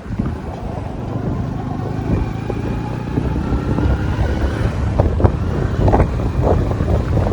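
Steady low rumble of a road vehicle in motion, with a faint rising whine through the middle and a few short knocks in the second half.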